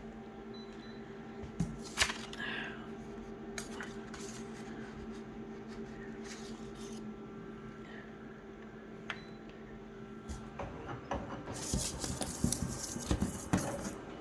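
Scattered small clicks and taps over a low steady hum that stops about ten seconds in, then a denser burst of clicking and rustling handling noise near the end.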